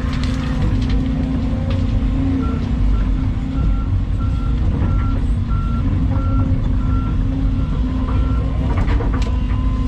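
Diesel engine of a Volvo EC220 excavator running steadily, with a machine's travel or backup alarm beeping about twice a second from about two seconds in until near the end, and a few knocks.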